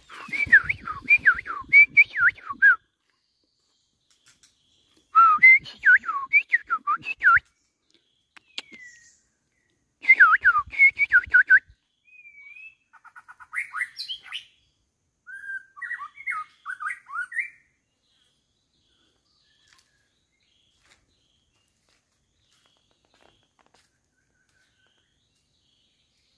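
A bird singing: three phrases of rapid, falling whistled notes, each two to three seconds long and a few seconds apart, followed by softer, varied calls that stop about 18 seconds in.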